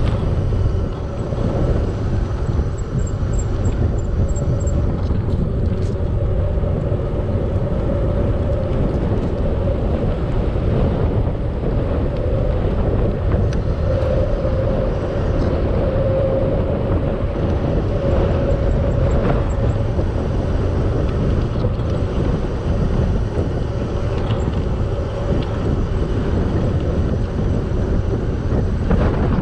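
Wind rumble on the microphone and road noise from a bicycle ride, with a steady mid-pitched hum underneath.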